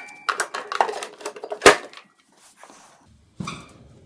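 Clattering and clicks of a lawn-tractor battery being set into its tray and its terminals connected, with one sharp, loud click about one and a half seconds in.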